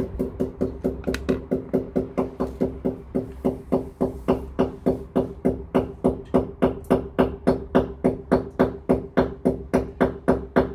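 Music with a steady, fast percussive beat, about four strikes a second, over a held low tone.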